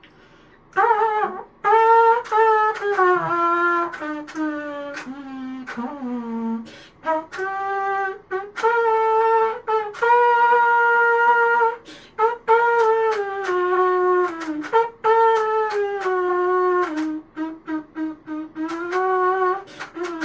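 A 3D-printed rectangular trumpet plays a simple tune of held notes with short breaks between them, then a run of short tongued notes near the end. Its tuning is a little off.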